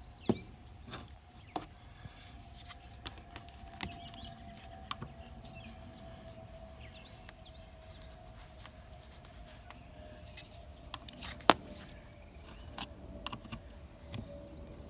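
Metal scraper blade scraping and clicking against the vent's flange and the corrugated aluminium siding as excess putty is trimmed away: scattered sharp clicks and light scrapes, the loudest click about eleven and a half seconds in, over a faint steady background hum.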